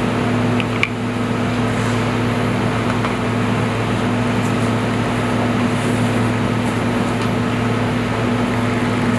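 Steady mechanical hum of running kitchen machinery: a fan-like rush over a low, even drone that does not change. A single light click sounds just under a second in.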